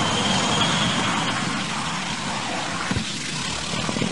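Aircraft crashing and breaking up on the ground: a dense, steady rush of engine and wreckage noise, with a faint high whine in the first second and two sharp knocks near the end.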